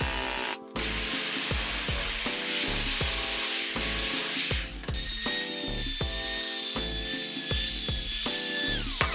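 Electric jigsaw cutting a steel plate clamped in a vise: a dense hiss with a faint whine. About five seconds in, an electric drill runs with a steady whine that falls in pitch and drops away as it stops near the end. Background music with a steady beat plays underneath.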